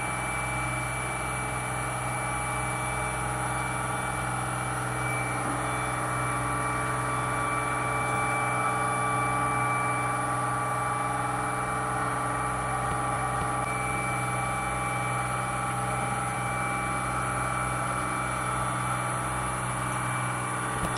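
Boat engine running at a steady speed, an even, unchanging drone with a constant hum.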